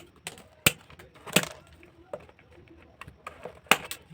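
A series of sharp knocks and clicks at uneven intervals, about seven in four seconds.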